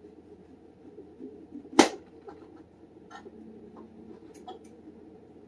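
Kitchen handling noises while a thin piece of leftover cornbread is cut: one sharp utensil knock about two seconds in, then a few faint clicks and taps.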